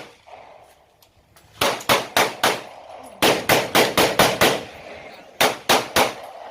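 Gunshots fired in quick strings at a shooting range: about a dozen sharp reports in three runs of three to six shots, each run firing at roughly three to four shots a second.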